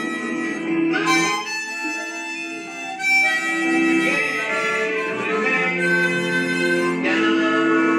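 Harmonica played with the instrument cupped in both hands: a slow tune of long held notes and chords, changing every second or two.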